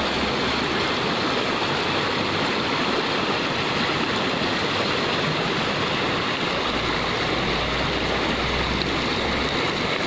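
Shallow river rushing steadily over rocks, a constant even water noise.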